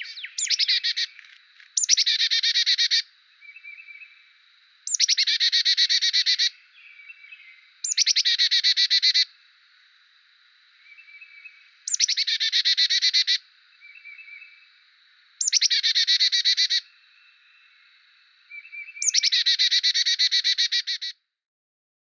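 Carolina chickadee giving its rapid, high-pitched chick-a-dee-dee-dee call, in about seven runs of fast dee notes a second or so long, with softer short calls between them. A faint steady high tone runs underneath, and the calling stops near the end.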